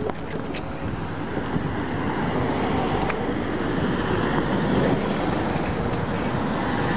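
A column of military trucks and armoured vehicles driving past: a steady mix of engine and road noise that grows slightly louder.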